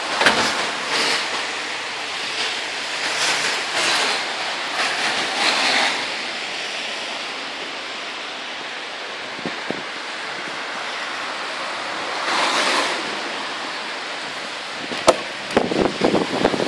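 Steady rush of rain and wind noise on the microphone over wet pavement, swelling and easing in gusts. Near the end, a quick run of sharp clicks and knocks as a car door is opened.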